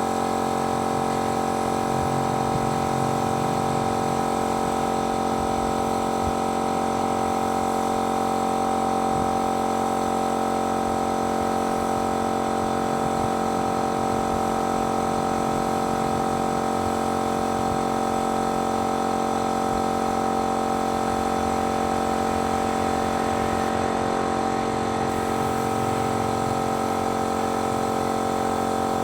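Paint-spraying machine running with a steady, even hum.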